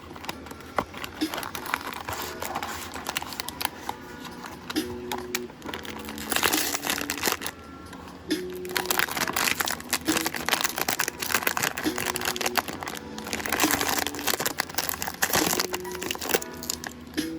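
Packaging crinkling and rustling as a blind box is unwrapped by hand, in dense spells, over background music with held notes.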